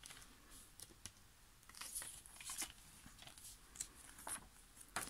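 Faint handling of a CD jewel case and its paper booklet: scattered light clicks and paper rustles as the booklet is leafed through.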